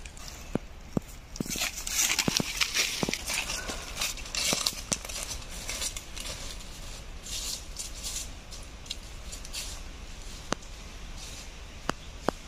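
Dry leaf litter crackling and rustling under footsteps, with scattered sharp clicks and snaps. The sound is busiest in the first few seconds and then thins out.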